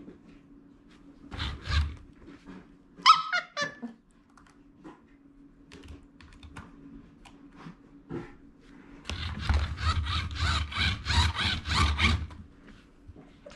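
Toy tuk-tuk pushed by hand across a carpet, its plastic wheels and gears clattering in a fast run of clicks for about three seconds near the end. Earlier there is a brief high squeak, over a faint steady hum.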